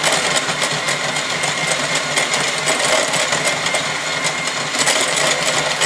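KitchenAid electric hand mixer running steadily, its beaters whisking egg, oil and sugar in a glass bowl to beat air in: a constant motor whir with a thin high tone and rapid small ticks of the beaters against the glass.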